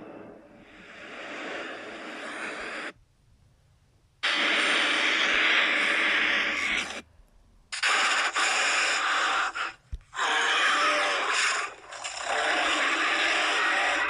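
Cartoon sound effects: a run of about five long, harsh, breathy gasps or wheezes with short gaps between them. The first swells up over a few seconds.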